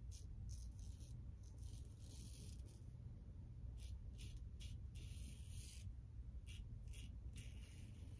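Apollo Light double-edge safety razor with a Gillette Super Thin blade scraping across lathered stubble on the second pass, against the grain. It gives a faint rasp on each of a dozen or so short strokes, a couple of them longer, over a low steady hum.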